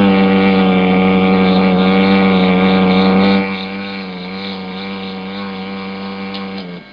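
A panda snoring: one long, steady droning snore that gets quieter about halfway through and stops just before the end.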